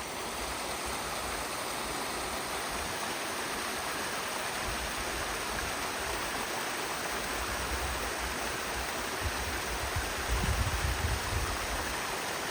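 Waterfall and creek running high with spring snowmelt: a steady rush of falling water. A few low thumps near the end.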